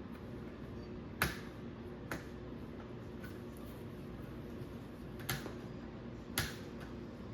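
Sharp plastic clicks of HO slot car track sections and track clips being snapped together: four separate clicks, the first about a second in and the loudest, the others at irregular gaps of one to three seconds.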